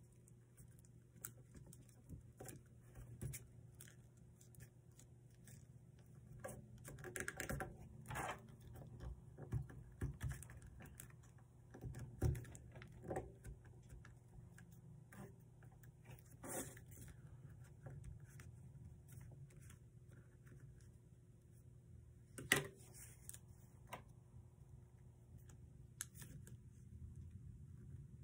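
Sheets of origami paper being handled and creased by hand: scattered soft taps, clicks and crinkles at an irregular pace, over a faint steady hum.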